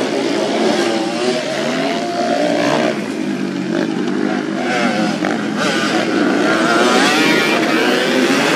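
Several dirt-bike engines revving hard in a race. Their overlapping notes rise and fall with the throttle and gear changes as the bikes pass.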